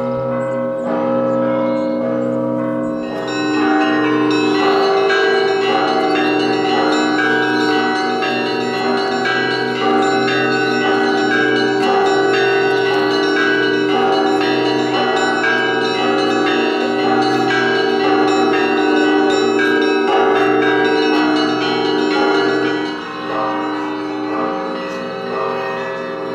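Russian Orthodox church bells ringing a continuous peal: many bells are struck in quick succession, and their tones overlap and hang over a low, deep ringing beneath.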